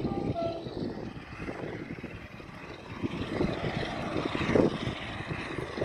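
Class 47 diesel-electric locomotive's Sulzer twelve-cylinder engine working hard under power, clagging black exhaust, a steady drone with an uneven, swelling low rumble.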